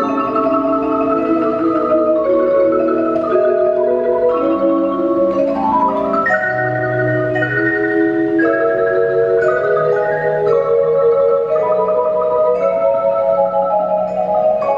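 Mallet percussion ensemble of marimbas and other keyboard percussion playing rolled chords in tremolo, the harmony shifting every second or so. A line of notes climbs about five seconds in.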